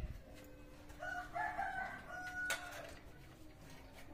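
A single drawn-out bird call, about a second and a half long, starting about a second in and ending in a sharp knock.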